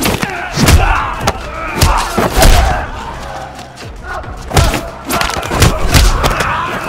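Hand-to-hand fight sound effects: a rapid series of hard punch and kick impacts, thuds and slams, with grunts of effort between them. The hits ease off around the middle before picking up again.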